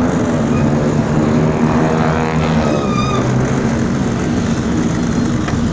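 Street traffic: a motor vehicle's engine running close by, its pitch shifting about halfway through, over a steady noise of traffic.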